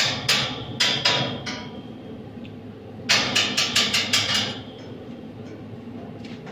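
Hammer blows in two quick runs of sharp, ringing strikes, about five a second; the first run trails off a second or so in, and the second comes about three seconds in.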